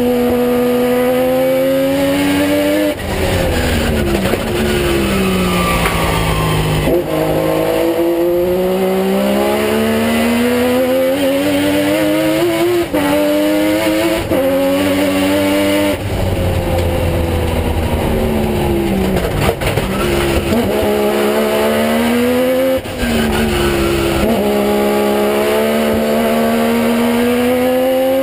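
Race car engine heard from inside the cockpit, driven hard around a circuit. Its pitch climbs through the revs and drops sharply at gear changes, several times. In between are longer stretches where the revs fall away slowly.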